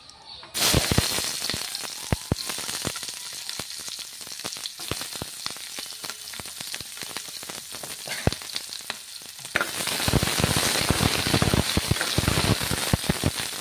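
Sliced onions hit hot mustard oil in a wok with dried red chillies and sizzle and crackle loudly, starting suddenly about half a second in. The sizzling grows louder about ten seconds in.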